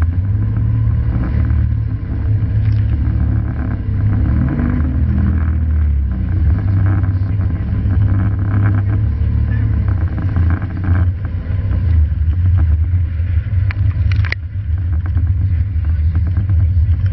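Rescue boat running fast through rough, breaking surf: a steady low rumble of engine and wind buffeting the onboard microphone, with waves slapping the hull and spray hitting, and one sharp crash of water near the end.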